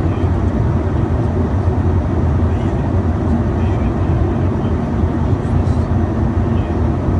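Steady low rumble of a business jet in flight, heard inside the cockpit: engine and airflow noise.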